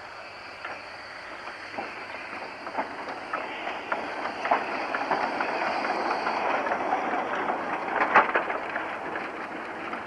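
750 mm narrow-gauge train rolling past, its wheels clicking over rail joints, growing louder to a peak about eight seconds in and then easing off.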